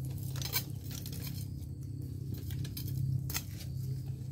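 A hooped fishing keep net full of fish being lifted out of a stream: irregular light rustling, patter and clicks of the wet mesh and hoops, with one sharper click a little after three seconds in, over a low steady hum.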